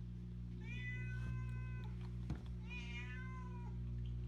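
A cat meowing twice, two drawn-out meows about a second long each, over a steady low hum.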